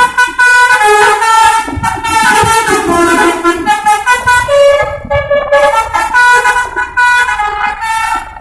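Bus-mounted basuri telolet multi-tone horn playing a melody, loud, its notes held briefly and stepping up and down one after another.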